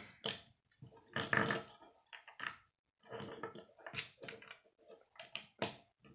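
Plastic Lego bricks being handled and pressed together on a wooden table: a series of short clicks and knocks, the sharpest about four seconds in.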